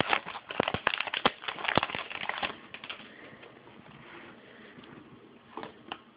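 Football trading cards being handled and flicked through, a quick run of sharp clicks and rustles over the first couple of seconds, then a few scattered clicks near the end.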